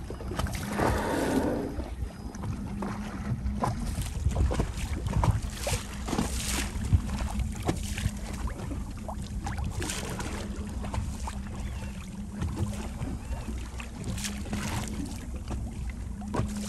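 A boat's engine running with a steady low hum under a rushing noise, with scattered knocks and clicks.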